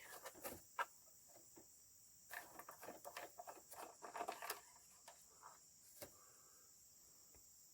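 Faint, steady chirring of crickets, with scattered small clicks and rustles of handling in the first second and again a little after two seconds in.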